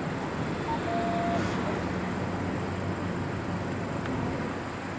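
Steady low rumble of street traffic and idling vehicles, with a short single-pitched beep about a second in.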